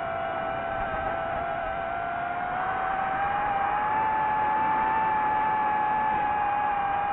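FPV quadcopter motors and propellers whining steadily; the pitch rises about three seconds in as the throttle comes up, then holds.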